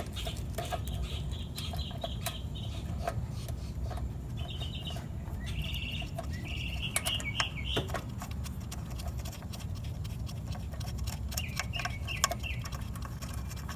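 Light clicks and taps of small screws and a screwdriver as an ignition coil is set in place and its screws started, over a steady low hum. Bird chirps come in short bursts several times.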